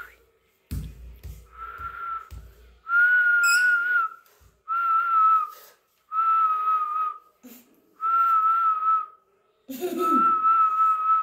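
Whistling: a series of about six drawn-out whistles, each held on one slightly wavering pitch for around a second, with short pauses between them. A few soft knocks come in the first couple of seconds.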